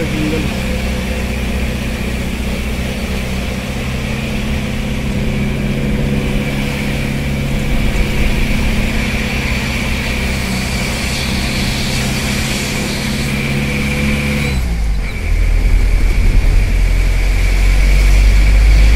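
Car engine and road noise heard from inside a moving vehicle, with a steady engine note. About fifteen seconds in the engine note drops away and a louder low rumble takes over.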